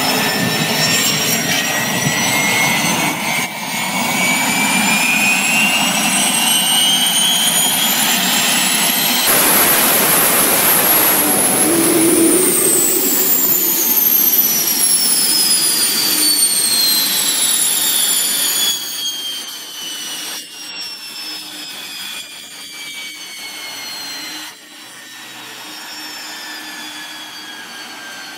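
Small jet turbine on a portable water pump, its whine rising as it spools up over a rushing exhaust noise. After about nine seconds the whine falls steadily and grows quieter as the turbine runs down.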